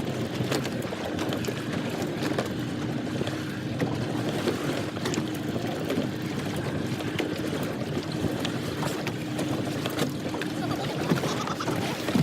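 Fishing boat's engine running steadily with a low hum, with water and wind noise around it and occasional small knocks.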